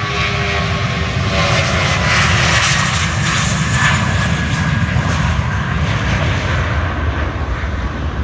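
Airbus A320's twin IAE V2500 turbofans at takeoff power as the airliner rolls past and rotates: a loud rushing roar that swells to its peak a few seconds in, with a whine that slides slightly lower in pitch as it goes by.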